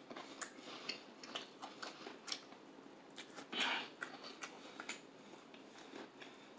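Close-up chewing and crunching of crispy fried chicken: irregular crisp clicks and crackles, with one louder crunch about three and a half seconds in.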